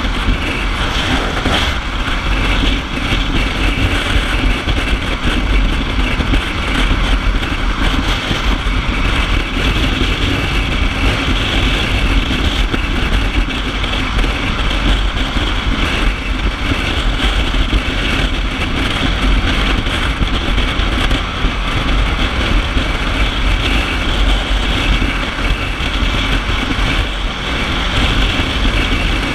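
Kawasaki Ninja 650 parallel-twin motorcycle cruising steadily at freeway speed: a dense rush of wind and road noise over the rider-mounted microphone, with the engine's steady running underneath.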